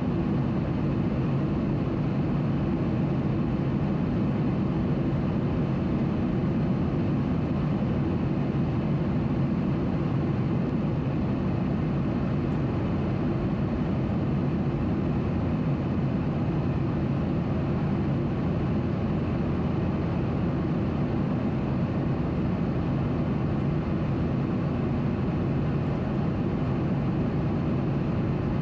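Steady cabin noise of a Boeing 737-800 in flight, heard from a window seat: an even, unchanging drone of its CFM56 jet engines and airflow, heaviest in the low range.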